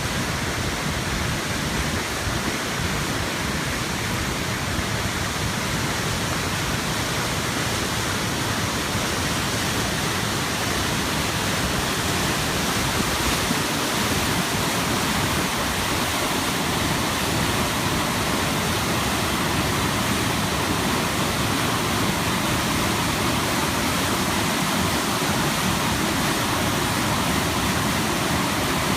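A river swollen by typhoon rain, its water rushing in a steady, unbroken wash of noise.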